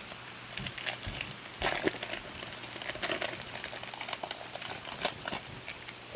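Crinkling of a trading-card pack wrapper being handled, a quick irregular run of crackles and rustles.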